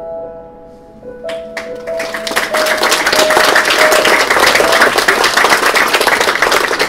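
Slow single piano notes of a film's closing-credits music, joined about a second in by audience applause that swells and carries on as the notes die away.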